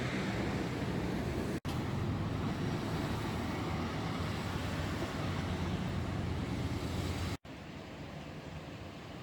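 Steady low rumble of a motor vehicle or road traffic, broken twice by abrupt cuts; it is quieter after the second cut.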